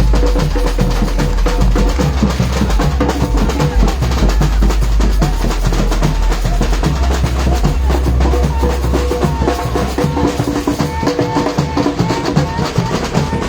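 Batucada samba percussion ensemble playing a dense, fast rhythm, with deep bass drums underneath, sharp higher strikes on top, and a few held pitched notes over the drumming.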